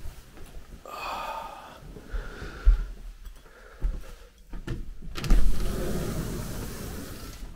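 Sliding glass patio door being pushed open along its track. Its rolling rumble comes about five seconds in, loudest at first and then trailing off. It follows a few knocks and rasps of handling.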